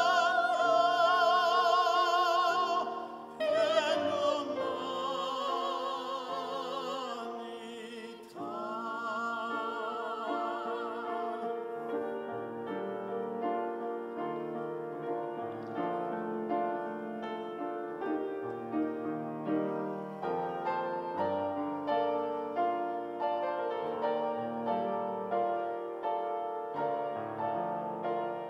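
Tenor and soprano singing in operatic style with wide vibrato over grand piano accompaniment. The voices stop about twelve seconds in and the piano plays on alone.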